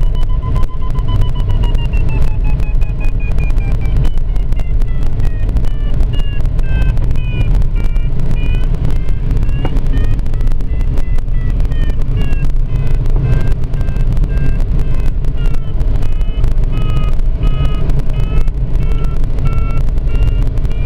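Glider's audio variometer: first a steady electronic tone that slowly falls in pitch, then from about four seconds in a run of short beeps whose pitch steps up and down, the usual vario signal for rising air. Under it, a loud steady rumble of airflow buffeting the cockpit and microphone.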